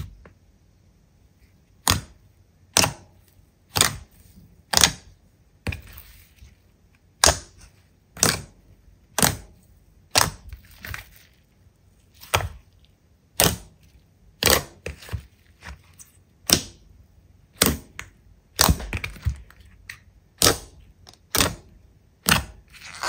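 Slime being pressed and poked, giving sharp popping snaps about once a second, some trailed by a short crackle.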